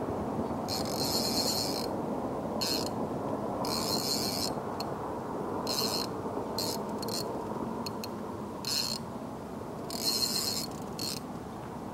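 Casting reel ratcheting in about a dozen short, irregular bursts while a large sturgeon is being fought on the line. A steady low rush runs underneath.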